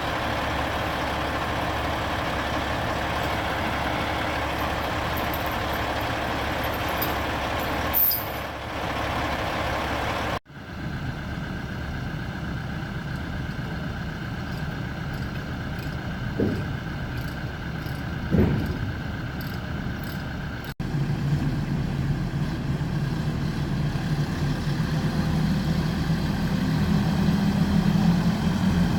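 Heavy diesel truck engine running steadily, with a short hiss about eight seconds in and two brief squeaks around sixteen and eighteen seconds. In the last part the engine grows louder and deeper.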